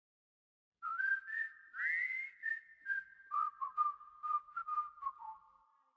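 A whistled tune: a run of short and held notes with small slides between them and a slight echo, starting about a second in and fading out near the end.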